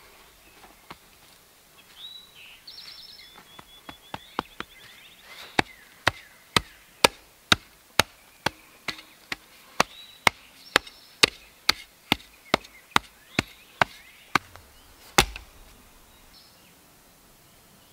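Metal shovel blade chopping into dirt in quick repeated strikes, about two a second, ending with one heavier thud. Birds sing a few short trills in the background.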